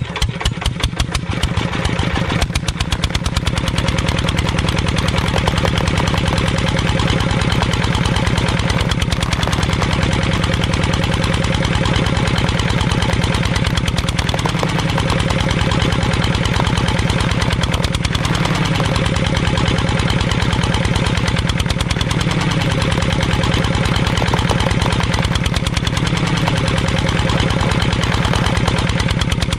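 Miniature model diesel engine starting up and settling into a fast, steady, even knocking run as it turns a belt-driven line reel.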